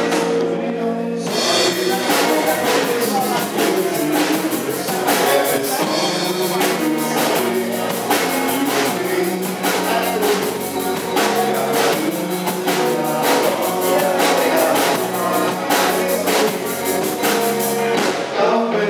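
Live rock band playing: two electric guitars, electric bass and a drum kit with a steady beat, and a male voice singing. The cymbals drop out briefly about a second in, then the beat resumes.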